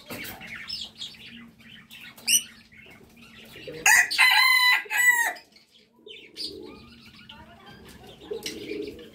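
Red junglefowl rooster crowing once, about a second and a half long, near the middle, with small birds chirping around it.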